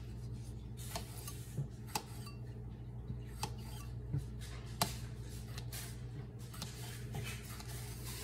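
Kitchen knife cutting Roma tomatoes, the blade knocking down through the fruit in about half a dozen short, sharp taps at uneven intervals, over a steady low hum.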